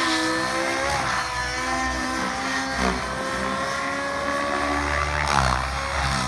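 SAB Goblin 700 nitro RC helicopter's two-stroke glow engine and rotor running at a held, nearly steady pitch with brief small dips, as the Maxx FBL governor keeps the head speed constant in flight.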